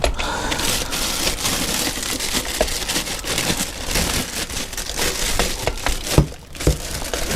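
Hand tools working on metal motorcycle gearbox parts: continuous scraping, rattling and small clicks, with one sharp knock about six seconds in.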